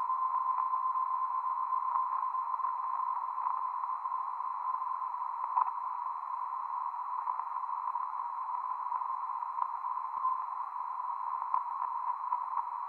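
VHF radio receiver tuned to the BRAMS meteor-radar beacon: steady receiver hiss with a tone near 1 kHz, the beacon's signal reflected off aircraft, fading gently over the first few seconds. A short ping near the end is a meteor-trail echo.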